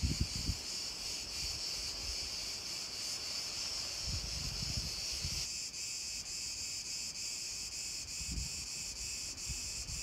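Cicadas buzzing in a steady high chorus, with wind buffeting the microphone in low gusts now and then. The chorus shifts in pitch and texture about five and a half seconds in.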